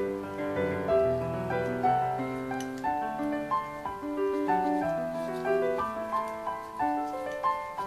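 Background piano music: a melody of successive sustained notes over a lower accompaniment.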